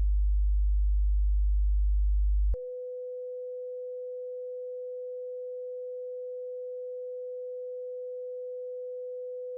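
Pure sine test tones from a hearing test: a very low tone of about 50 Hz holds steady, then about two and a half seconds in it cuts straight to a quieter, steady tone of about 500 Hz.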